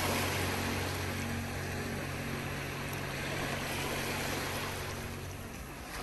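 Sea surf washing on the shore, a steady rush of waves, with a low held note of background music dying away under it.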